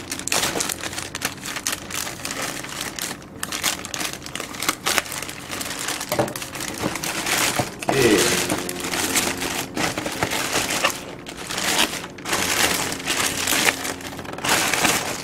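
Plastic courier mailer bag crinkling and rustling in irregular bursts as it is torn open and handled, loudest about halfway through.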